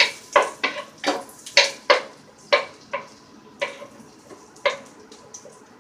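A cooking utensil knocking and scraping against a pan as butter is melted in it: about ten sharp, irregular clinks with a brief ring, coming thick in the first three seconds and sparser after.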